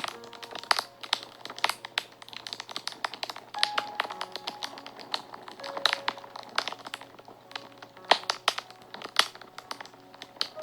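Wood fire crackling, with many sharp irregular pops and snaps, over soft background music of slow held notes.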